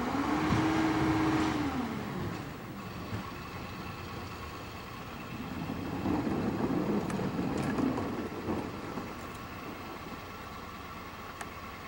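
Diesel engine of a CCC integrated rear loader garbage truck running, revving up just after the start and settling back about two seconds in, then rising and falling again in the middle. A few light clicks come near the end.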